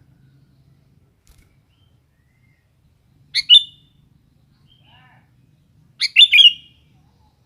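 Sooty-headed bulbul (kutilang) calling: two short, loud phrases about three seconds apart, the first a little over three seconds in and the second, slightly longer, about six seconds in.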